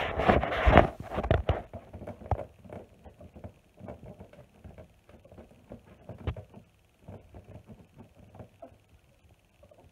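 Ferret scratching and rustling as it claws and tugs at the fabric underneath a couch. There is a burst of loud, dense scratching in the first second and a half, then softer scattered scratches and rustles with short pauses.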